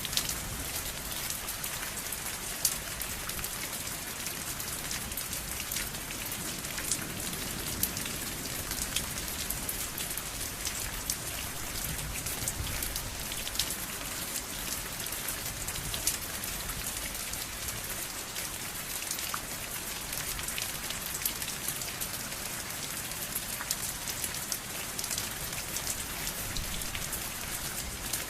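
Steady rain falling, with many separate drops pattering and ticking on a surface through the even hiss of the downpour.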